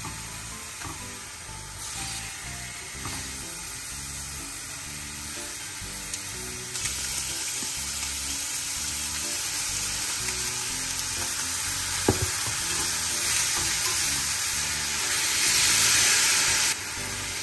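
Pork neck and kimchi sizzling as they fry in a hot pot. The sizzle grows louder about a third of the way in and is loudest near the end, as water is poured in. There is a single sharp knock about two-thirds of the way through.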